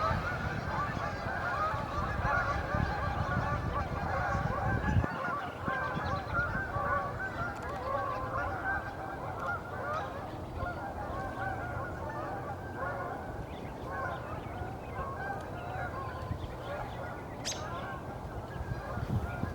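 A flock of geese honking, many calls overlapping in a continuous chorus, with low wind rumble on the microphone in the first few seconds.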